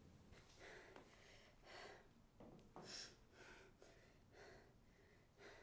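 Near silence, with a person's faint short breaths about ten times.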